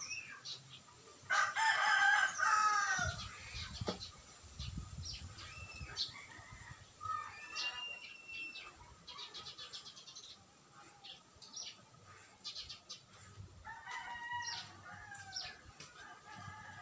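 A rooster crows loudly about a second in and again more faintly later, with small birds chirping around. A few dull knocks follow the first crow as the wooden speaker box is set on the boards.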